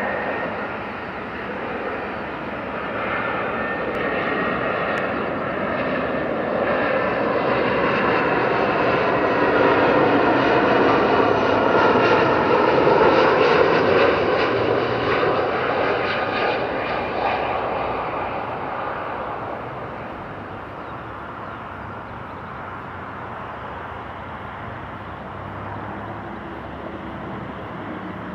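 Airbus A320-214's CFM56 turbofan engines on a landing approach, passing the listener. The whining jet noise grows louder to a peak about halfway through, then fades as the whine slides down in pitch.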